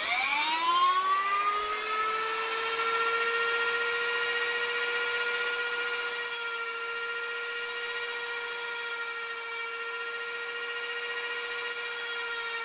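Dremel-type rotary tool with a thin cutting disc, winding up to speed with a rising whine over the first second or two, then running at a steady high whine. It is cutting a slit into a rusted steel bayonet scabbard so penetrating oil can get in, and a harsher grinding layer comes and goes as the disc bites into the metal.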